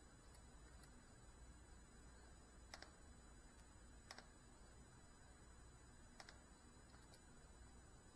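Near silence: faint room tone with a handful of scattered, faint, sharp clicks.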